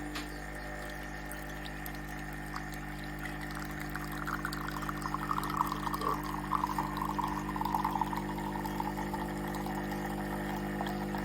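Bean-to-cup espresso machine dispensing: its pump hums steadily while coffee pours into a cup, the splashing stream growing louder about four seconds in.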